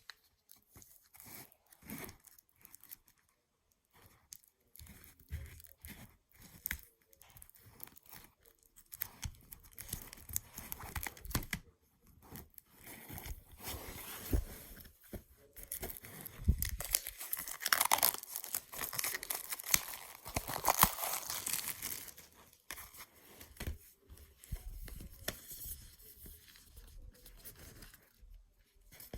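Packaging being opened by hand: irregular tearing, crinkling and crackling, busiest and loudest about two-thirds of the way through.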